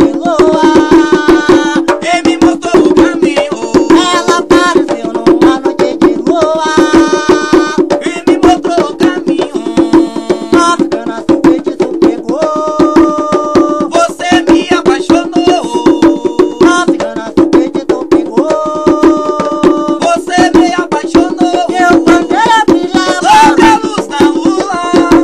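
A Brazilian Portuguese song: a voice sings line after line over a fast, dense hand-percussion rhythm with rattles.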